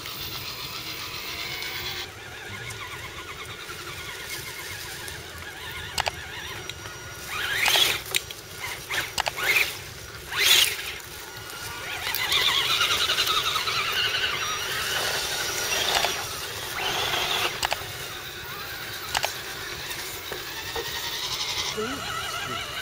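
Electric motor and gears of a scale RC truck whining as it is driven, swelling and fading, with a few sharp louder bursts about a third of the way in.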